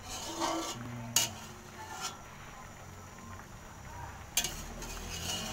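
A metal slotted spatula scraping and knocking against an aluminium wok of boiling water as the scum is skimmed off, with two sharp clinks, one about a second in and one near the end.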